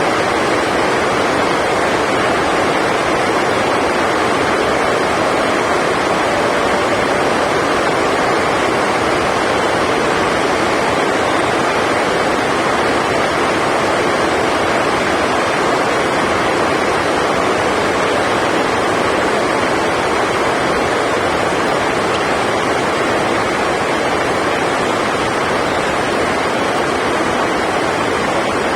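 Heavy rain drumming steadily on the sports hall's roof, a loud, even rushing hiss that drowns out the court.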